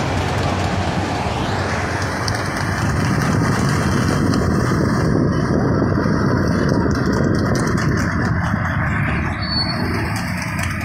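Steady road noise of a vehicle moving at speed through traffic: engine and tyres on tarmac with rushing air.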